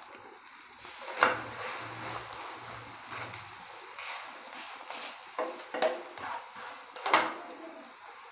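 Egg paratha frying in oil on a flat nonstick pan with a faint sizzle, while a wooden spatula presses and scrapes it against the pan. A few sharper scrapes stand out, once about a second in and several times in the second half.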